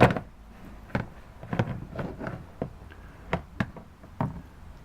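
Knocks and clicks of hard objects being handled in a car's door storage pocket, about a dozen irregular taps, the loudest right at the start.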